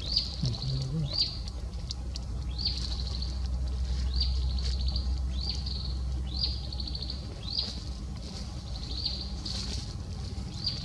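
A forest bird's short high call repeated about once a second: a quick upward sweep that runs into a brief trill, over a steady low background hum.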